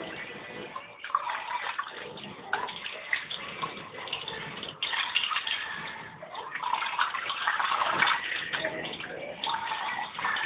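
Dishes being washed by hand at a sink: water running and splashing irregularly, louder in the second half, with a few sharp knocks.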